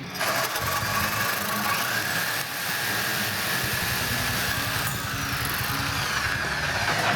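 Motorised power tool cutting through steel threaded rod: a steady, loud grinding with a high whine, starting and stopping abruptly.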